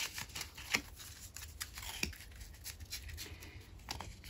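Oracle cards handled and fanned out by hand: a few soft scattered clicks and slides of card edges against each other.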